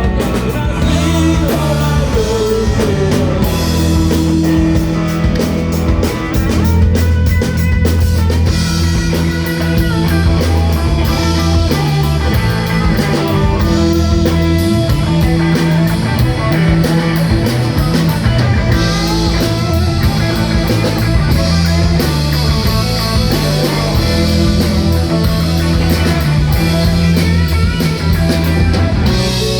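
Live rock band playing at full volume, with electric guitar over bass guitar and drum kit.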